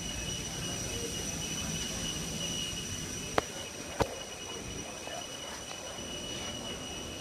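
Ambience in an airport jet bridge: a steady high-pitched whine over a low rumble, with two sharp clicks about half a second apart a little past the middle.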